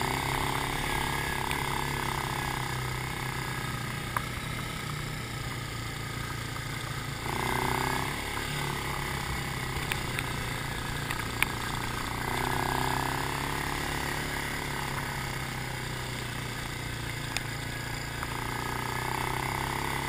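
ATV engine running under throttle while riding a dirt trail. It swells and eases several times, with a few sharp knocks from the bumps.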